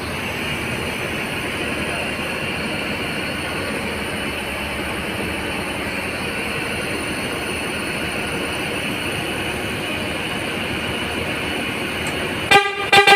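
Mercedes-Benz OH 1526 bus diesel engine running steadily, then near the end a few short toots on the bus's horn.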